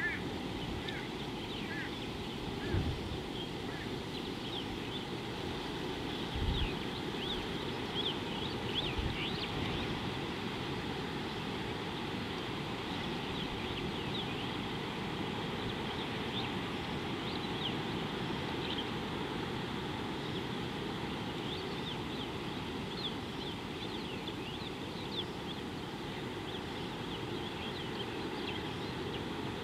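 Outdoor ambience: a steady low rush of wind with a few low thumps of wind on the microphone, and small birds giving many brief high chirps throughout.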